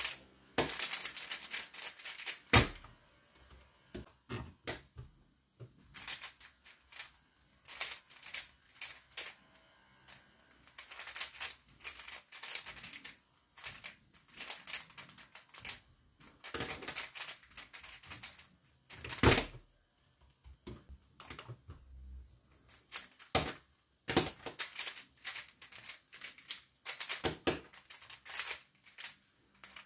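A 3x3 speed cube being turned fast one-handed: long runs of rapid plastic clicking and clacking, broken by short pauses between solves. Two louder single knocks stand out, about two and a half seconds in and again near nineteen seconds.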